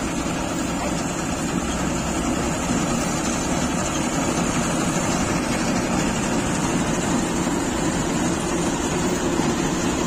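Tractor-mounted combine harvester working through standing wheat: the New Holland tractor's diesel engine runs steadily under load, driving the header, reel and threshing machinery, with an even, unbroken machine noise.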